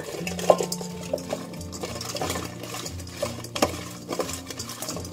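Cut bitter melon pieces tossed by hand with salt in a stainless steel bowl, the pieces knocking and clicking irregularly against the metal. The salting draws water out of the bitter melon.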